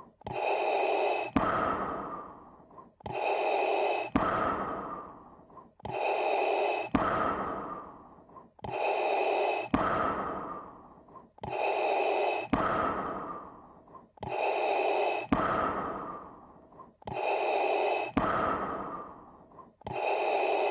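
Darth Vader's mechanical respirator breathing sound effect: a filtered in-breath followed by a fading out-breath, repeating evenly about every three seconds.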